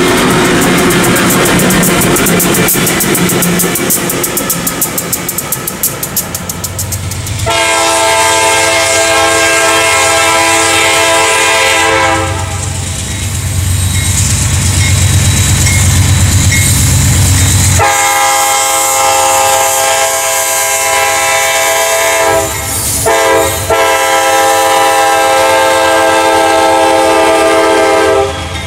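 Freight train wheels clattering past, then a diesel locomotive's air horn sounding long, long, short, long: the standard grade-crossing signal. A low diesel engine drone runs under the horn notes as the CSX locomotives approach.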